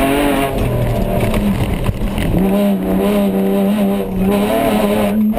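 Off-road race car's engine heard from inside the cabin while driving hard, its revs rising and falling in the first moments, then held at a steady pitch from a little over two seconds in.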